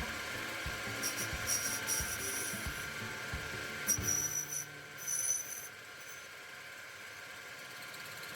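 Benchtop lathe running with a steady whine, with two spells of a higher-pitched cutting sound, one about a second in and one about four seconds in, as the tool works the spinning part.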